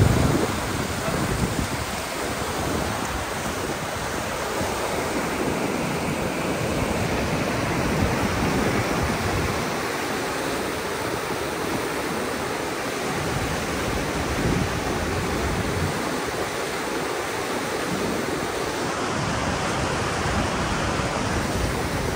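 Fast mountain river rushing over rocks in rapids: a steady, unbroken rush of whitewater.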